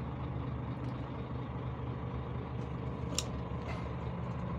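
Scania P360 truck's diesel engine running steadily, heard from inside the cab, with a single short click about three seconds in.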